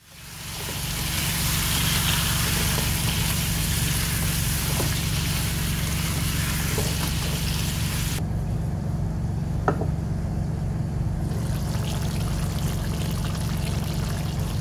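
Tomatoes and onions sizzling in a wok, with a few clicks of the spatula against the pan; after a sudden change about eight seconds in, a thinner bubbling of the chicken stew simmering. A steady low hum runs underneath.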